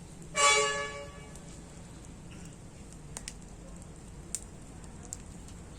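A single short, loud pitched honk lasting about half a second, a little after the start, followed by a few faint scattered clicks.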